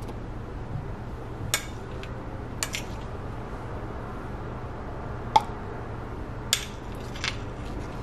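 Metal spoon tapping and clinking against a plastic blender cup and a plate while chopped fruit is spooned in: a handful of short, sharp taps, the loudest about five seconds in, over a steady low hum.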